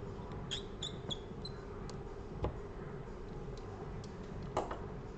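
A few light ticks and clicks of small tools and parts being handled on a repair bench, some with a brief metallic ring, and a dull tap midway, over a steady low hum.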